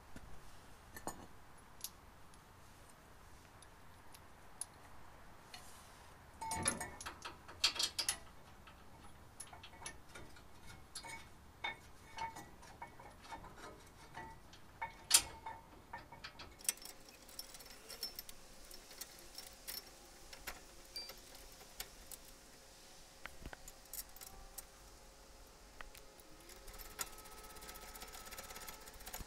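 Faint, scattered metallic clicks and clinks of hand tools and parts at a truck's front brake caliper bracket and rotor, with a cluster of louder clinks about seven seconds in and one sharp clink midway.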